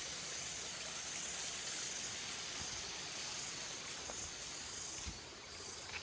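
Steady outdoor hiss of a tropical wooded valley, with a faint high insect drone over it. A soft low bump about five seconds in.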